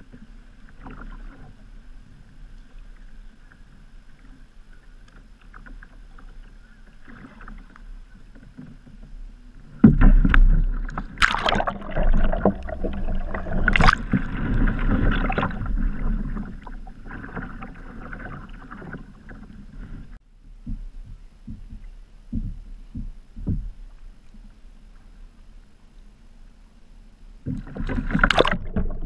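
Sea kayak rolling over in calm water, heard from the bow: gentle lapping and paddle strokes, then a sudden loud rush of splashing water about ten seconds in as the kayak goes over and comes back up. A few light knocks follow, and near the end a second loud splash as it tips over again.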